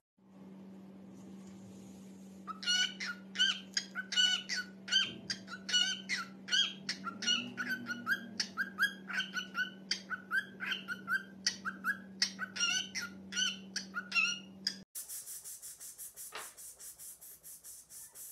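Cockatiel chirping over and over, short calls about three a second, over a steady low hum. Near the end the chirping stops and faint quick ticks follow.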